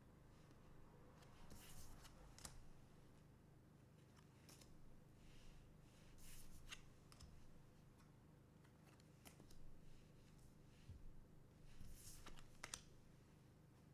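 Trading cards being handled: faint, scattered short swishes and clicks as cards slide and are flicked through, over a low steady hum.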